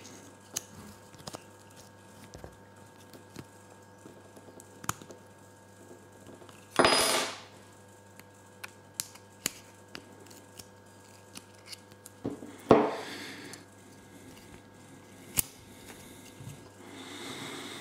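Needle-nose pliers and fingers working the coil return spring out of a Campagnolo shifter's plastic body: scattered small clicks and taps of metal on plastic, with two louder bursts of scraping noise about seven and twelve seconds in.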